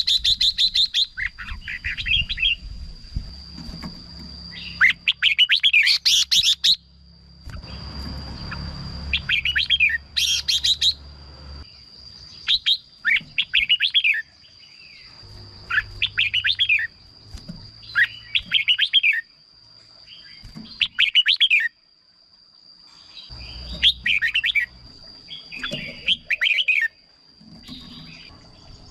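Red-whiskered bulbul singing short, loud, warbling phrases again and again, one every second or two, over a steady high thin tone in the background.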